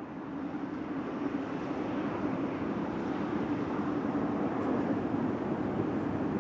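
Steady outdoor background rumble without a clear tone, growing louder over the first couple of seconds and then holding level.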